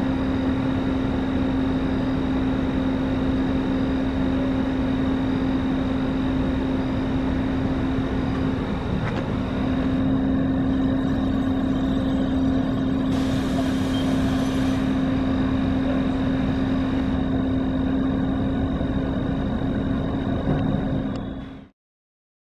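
Steady drone of a running vehicle engine with a constant low hum. It cuts off abruptly near the end.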